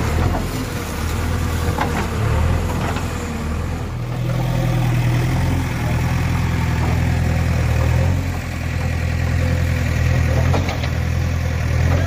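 JCB 3DX backhoe loader's diesel engine running under digging load, its note stronger and louder for a few seconds from about four seconds in. A few light knocks are heard over it.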